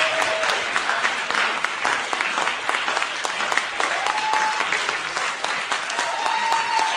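An audience applauding, many hands clapping steadily, with a couple of short held tones over it about four seconds in and near the end.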